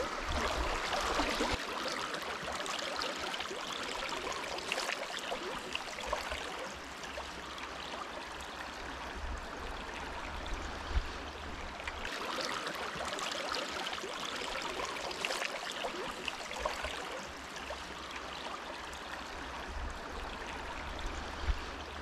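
Shallow river water running steadily over a stony riffle, with a low, uneven rumble underneath and one small knock about eleven seconds in.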